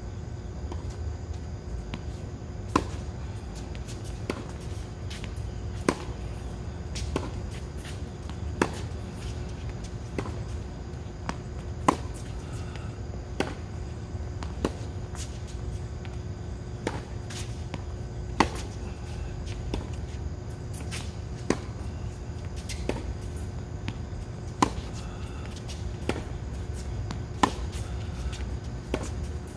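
Tennis ball struck cleanly by a racket on baseline groundstrokes, a sharp pock about every three seconds through a steady rally, with a fainter ball impact between each pair of hits. A steady low rumble and a faint hum run underneath.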